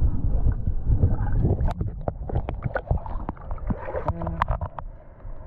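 Water sloshing and gurgling with many sharp clicks and rattles, and a short beep about four seconds in.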